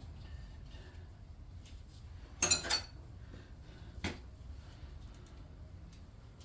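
Metal hand tools clinking on a hard surface: a short double clatter about two and a half seconds in and a single sharp knock about four seconds in.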